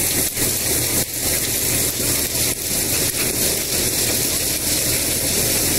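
Tractor-driven corn thresher running steadily: a constant mechanical noise over the low, even drone of the tractor engine, with an occasional knock.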